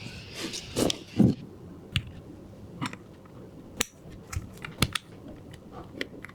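A series of irregular sharp clicks and taps of small hard objects, about a dozen, with the loudest knocks about a second in and just before the five-second mark.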